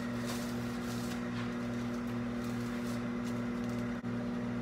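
Microwave oven running: a steady low electrical hum that wavers slightly about twice a second, with a few faint clicks in the first second or so.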